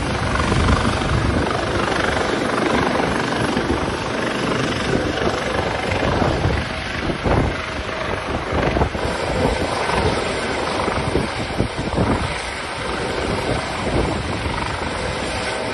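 Helicopter rotor and engine noise from a Coast Guard helicopter hovering close to a ship, mixed with gusty wind rushing on the microphone.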